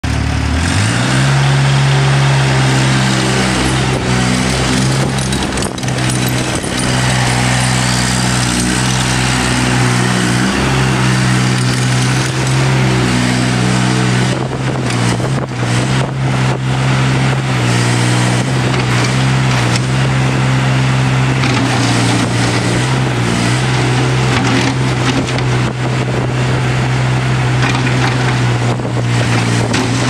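ASV RC-30 compact track loader's engine revving up in the first second, then running steadily at high throttle as the machine drives on its rubber tracks and works its bucket. A few brief knocks and clatter around five seconds in and again around fifteen seconds.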